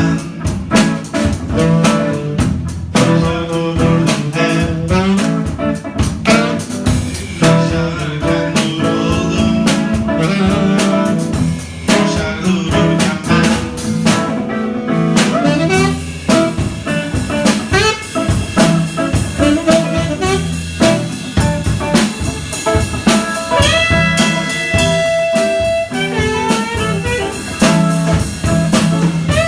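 Jazz improvisation on saxophone and guitar with a drum kit. Busy drumming in the first half gives way to long held notes near the end.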